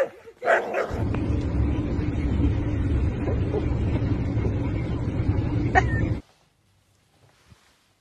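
A dog gives a short bark or yip, then a steady low rumble of road and engine noise inside a car runs for about five seconds. A sharp click comes near the end, and the rumble stops suddenly.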